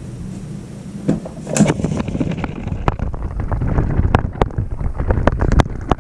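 A small toy train's electric motor hums steadily for the first couple of seconds. From about a second in, a run of irregular sharp clicks and knocks follows as the train clatters along a plastic track.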